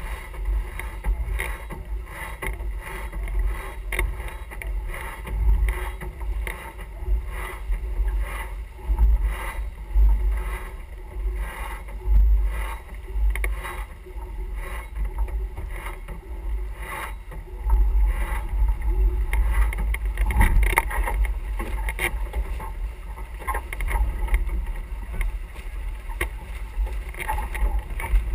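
Wind buffeting the microphone aboard a sailing yacht under way, an uneven low rumble that swells and dips, with water rushing along the hull.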